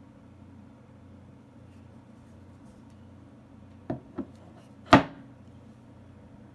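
A metal avionics control box, the Su-27's Block 480-I IFF controller, being handled and set down on a wooden desk: two light knocks close together about four seconds in, then one louder knock with a brief ring, over a faint steady hum.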